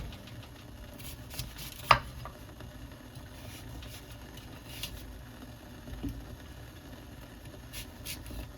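Kitchen food-prep handling sounds: one sharp knock about two seconds in, then a few light taps and clicks, over a low steady hum.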